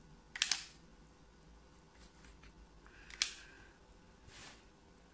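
A hot soldering iron sizzling on rosin flux in short, sharp crackling hisses: a quick double one about half a second in, another about three seconds in, and a fainter one later. Under them a small 12 V computer fan hums faintly and steadily, run slowly on 5 V.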